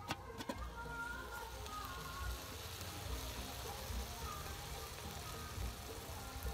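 Chicken pieces sizzling in a cola-based sauce in an uncovered aluminium pot over a charcoal stove. Two sharp metal clicks right at the start as the pot lid is lifted off.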